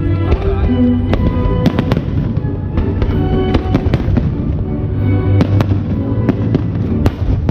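Aerial fireworks bursting in an irregular string of sharp bangs over loud show music.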